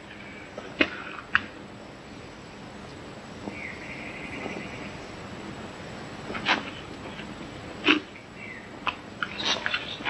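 A bird calling once midway, a clear whistled trill about a second and a half long, over the steady hiss of an old film soundtrack. A few short sharp clicks or knocks fall here and there.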